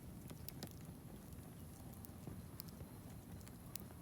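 Wood fire crackling, with faint irregular sharp pops a couple of times a second over a low steady rush.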